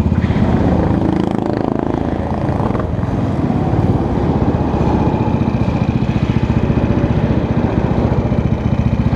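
Go-kart engine running, heard from the driver's seat, its note changing over the first few seconds and then running steadily.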